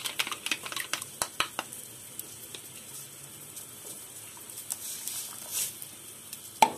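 Chicken stock and noodles simmering in a steel pot on a gas burner, crackling and bubbling. The crackle is busiest in the first second or so, then settles to a steady hiss with scattered pops. A single sharp clack sounds near the end as beaten egg is poured into the pot.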